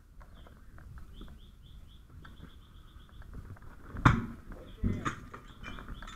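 A firefighter's hook smashing out window glass from the roof to vent smoke: two loud crashes of breaking glass about a second apart, near the end.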